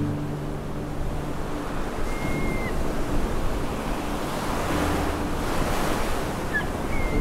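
Baltic Sea surf breaking and washing in around the wooden posts of a groyne, swelling loudest about five to six seconds in, with wind on the microphone. A gull gives a short call about two seconds in and again near the end.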